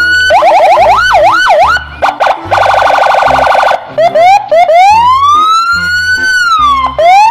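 Police car's electronic siren running through its modes: quick up-and-down yelps, a rapid warble about halfway through, then a slow wail that rises and falls and starts to climb again near the end.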